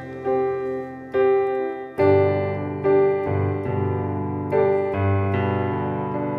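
Piano playing a slow instrumental passage between sung lines, a new chord struck about once a second and left to ring.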